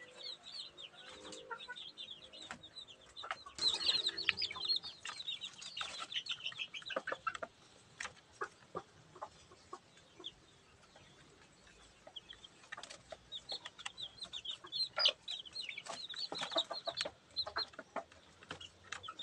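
A brood of chicks peeping rapidly in short, high, falling calls, with a hen's low clucking in the first few seconds. The peeping thins out for a few seconds midway, then picks up again.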